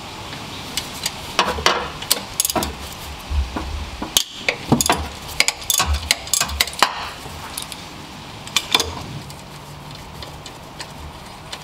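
Short ratchet clicking and the socket and wrench clinking against metal as the lower 12 mm alternator mounting bolt is loosened. The sharp, irregular clicks come in short clusters and thin out near the end.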